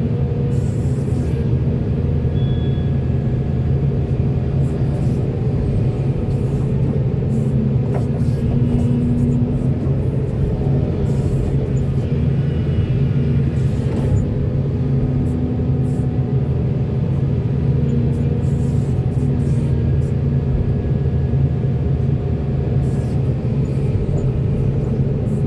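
Diesel engine of heavy construction machinery running with a steady low drone.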